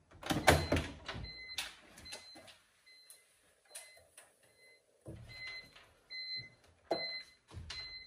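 A driver in a race suit climbing out of a caged race car: a run of sharp knocks at first, then scattered knocks and fabric rustling against the seat and roll cage. A faint short electronic beep repeats at irregular intervals.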